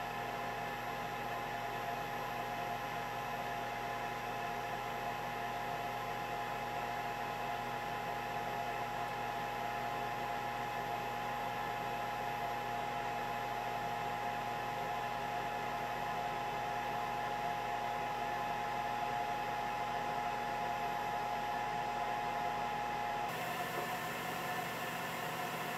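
Countertop air fryer oven running: steady whirring fan noise with a constant humming tone. Near the end the tone stops abruptly and the hiss turns brighter.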